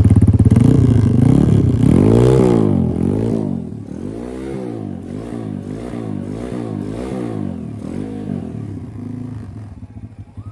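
KXD 612 Adler 140 cc pit bike's single-cylinder four-stroke engine running on its first cold start with the choke on. It is revved hard about two seconds in, then given short throttle blips about twice a second, before settling to a quieter, steadier run near the end.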